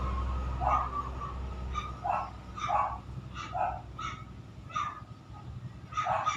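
A dog barking repeatedly, about seven short barks at uneven gaps of half a second to a second, while a low vehicle engine hum fades out over the first couple of seconds.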